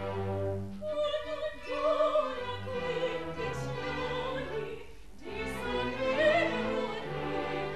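Background music: opera singing, a high voice holding long wavering notes over orchestral accompaniment, with a short break between phrases about five seconds in.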